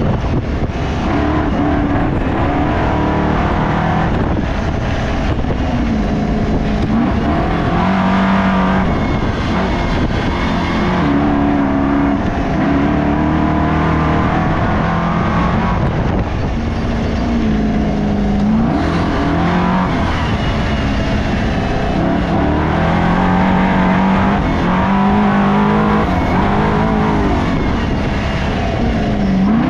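Race car engine running hard and loud, its pitch climbing and dropping again and again as it accelerates, shifts and backs off.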